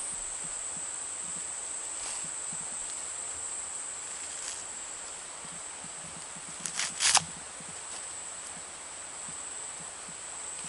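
Sprouted coconut being husked: a few sharp knocks, with a quick cluster of three louder ones about seven seconds in. A steady high-pitched insect drone runs underneath.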